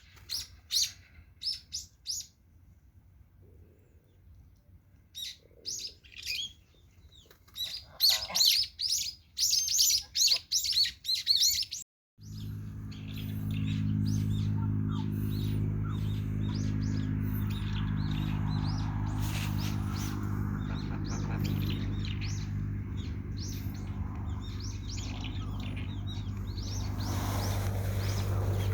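Birds chirping in quick, high, repeated bursts. About twelve seconds in, the sound cuts suddenly to a steady low hum with several even tones, which runs on to the end.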